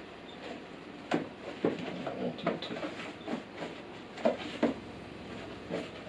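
Unpacking noise: paper and packaging rustling, with several sharp knocks and clacks of hard plastic vacuum parts being handled in the vacuum's plastic tank.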